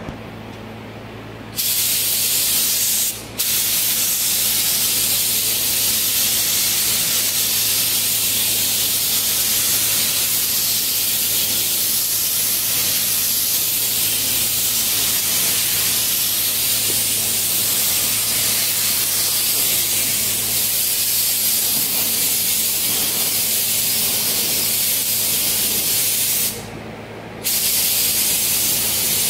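Gravity-feed paint spray gun hissing steadily as it lays clear coat on a bumper. It starts about a second and a half in, with a brief stop a couple of seconds later and another short release of the trigger near the end. A steady low hum runs underneath.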